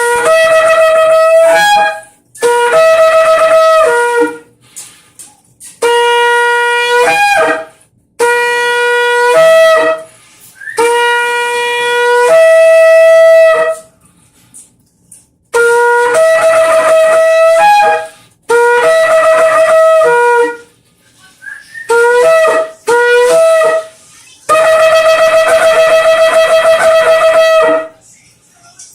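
Shofar (ram's-horn trumpet) blown in a series of about nine loud blasts, each lasting a couple of seconds and mostly jumping between a lower and a higher note. The longest blast, near the end, wavers rapidly.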